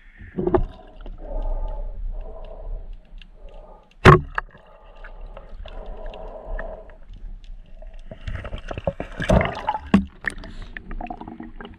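Water gurgling and sloshing around a camera moving in and out of shallow water. There is a sharp knock about four seconds in, and a burst of splashing and clicks near the end as the speared fish is handled at the surface.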